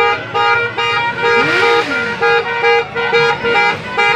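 A vehicle horn honking over and over at one steady pitch, in short blasts about two or three a second, loud and close, as cars sound their horns along a street procession.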